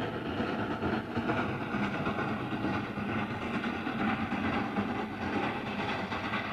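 Darjeeling Himalayan Railway toy train running along its narrow-gauge track, a steady, unbroken rail noise.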